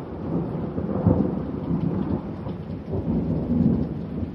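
Thunderstorm: thunder rumbling over steady rain, swelling about a second in and again near the end.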